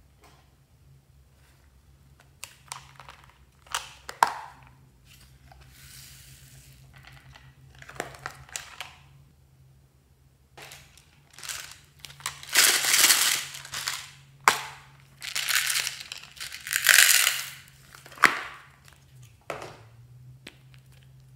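Hands squeezing and pressing slime, giving irregular crackling bursts and sharp clicks and pops, thickest and loudest in the second half.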